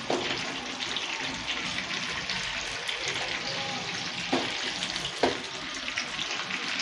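Chicken pieces coated in egg and cornflour sizzling and crackling steadily as they shallow-fry in hot oil in a nonstick frying pan, with a couple of brief louder clicks about four and five seconds in.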